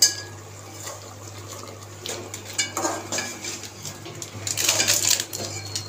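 Metal slotted spatula scraping and knocking against a steel cooking pot as chicken pieces are stirred with the spice mix, in scattered strokes with a denser run of scraping near the end.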